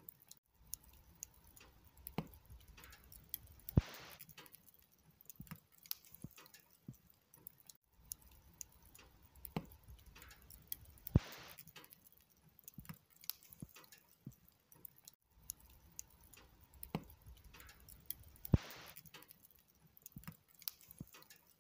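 Log fire crackling, with scattered small snaps over a low hiss. Three times, about seven seconds apart, a sharp pop is followed by a brief hiss, the same stretch of crackling repeating each time.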